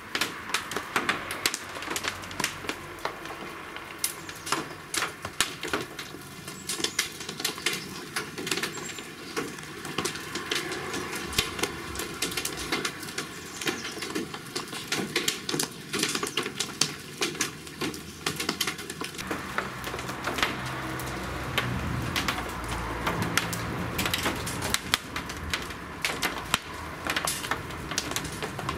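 Large raindrops mixed with occasional hailstones striking hard surfaces: a dense, irregular clatter of sharp taps. A low rumble joins in during the second half.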